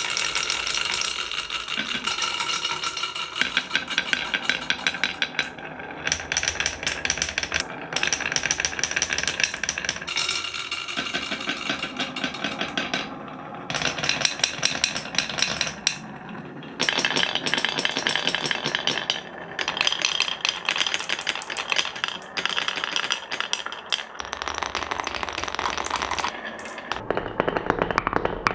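Many marbles rolling and clattering down HABA wooden slopes: a continuous rattle of rapid clicks and knocks, with brief lulls about halfway through.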